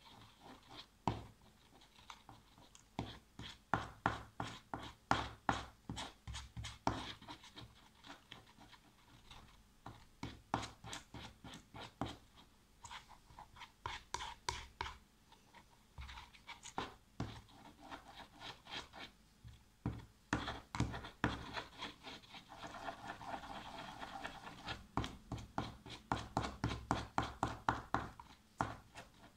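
Metal spoon stirring glue slime in a small plastic tub: repeated scraping strokes and taps against the plastic, about two a second, with brief pauses. The slime is being worked after a little boric acid activator has been added.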